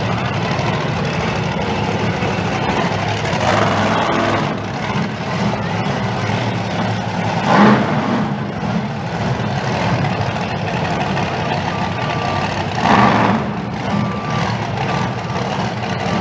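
Monster truck's big engine running steadily, surging louder three times as it is revved. Short high beeps sound a few times near the end.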